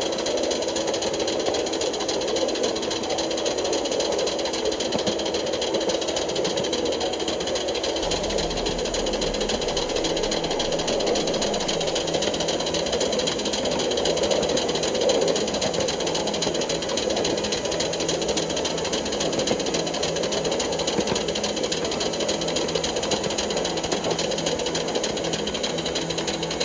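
Coal-fired 3.5-inch gauge LBSC Juliet live steam locomotive working hard up a steep grade: a rapid, steady beat of exhaust and running gear.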